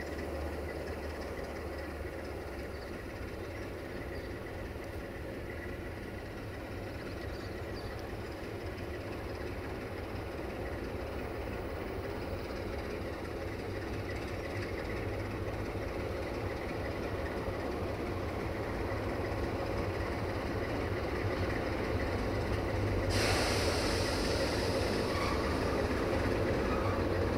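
CFR Class 60 (060-DA/LDE2100) diesel-electric locomotive's Sulzer V12 diesel engine running as the locomotive creeps toward the listener while shunting, growing slowly louder. A steady hiss comes in suddenly near the end.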